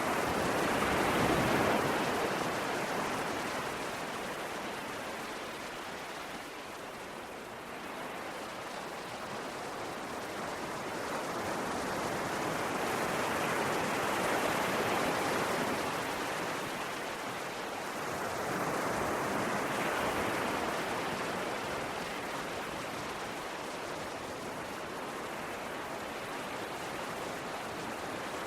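Sea waves washing onto a shore: a continuous rush of surf that slowly swells and ebbs, louder about a second in, again around the middle and once more a few seconds later.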